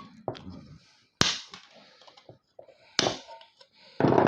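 Cutters snipping through the wiring inside a PC power supply: a few sharp snaps, the loudest about a second in and about three seconds in, then a short rattle of handling near the end.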